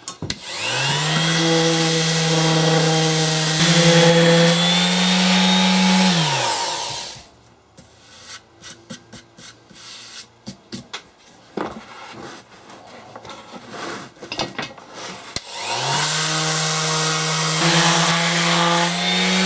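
Electric sander spinning up and sanding wood for about six seconds, its motor whine stepping up in pitch partway through, then winding down. Light knocks and scraping follow, and the sander spins up again near the end.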